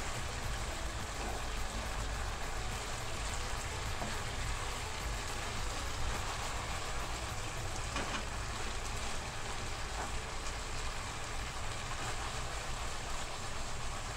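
Beef, tomato and eggs sizzling in oil in a nonstick frying pan: a steady hiss with a low steady rumble underneath and a few light taps of a wooden spatula.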